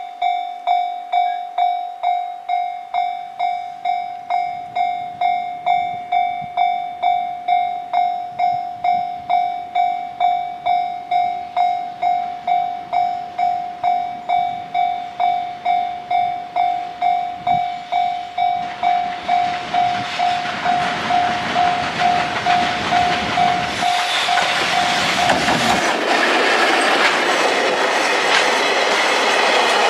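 Japanese level-crossing warning bell ringing steadily, a little over two dings a second. About two-thirds of the way in, a freight train of tank wagons hauled by an EF210 electric locomotive reaches the crossing. Its rumble and clickety-clack on the rails grow until they cover the bell.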